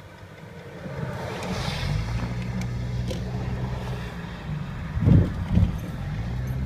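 Car engine humming steadily as the vehicle drives, starting about a second in, with wind noise on the microphone. Two short loud thumps come about five seconds in.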